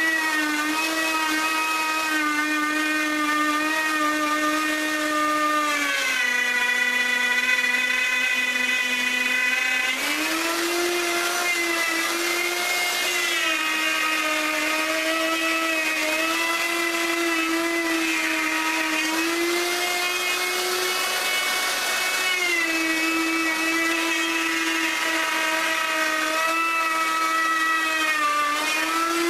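Electric router running continuously with a high motor whine, cutting wood. Its pitch drops for a few seconds about six seconds in as the motor slows under the cutting load, then recovers, with smaller sags later on.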